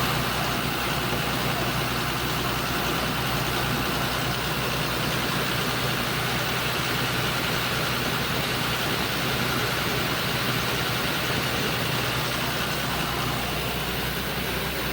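Engine driving an air compressor, running steadily at one constant speed during a test run.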